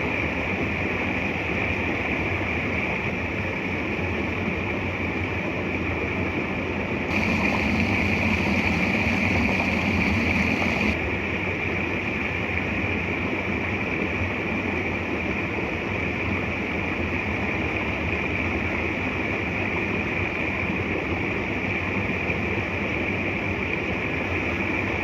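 Steady rushing of a waterfall and creek water. It grows louder and brighter for about four seconds roughly a third of the way through.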